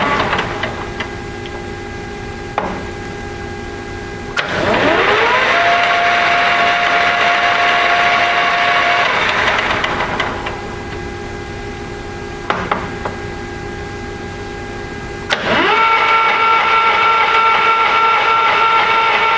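Sebastian A-8 engine lathe running under power. About four seconds in, the spindle is started and whines up to speed within a second, runs steadily, then is stopped and winds down. About fifteen seconds in, it is started again and runs up to a higher-pitched steady whine, a faster speed.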